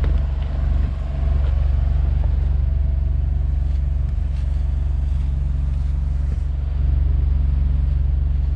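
An engine idling steadily: an even, deep low rumble that holds the same throughout.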